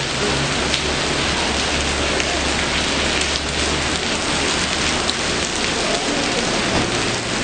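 Steady rain falling on pavement, with a few scattered sharp drip ticks and a low steady hum underneath.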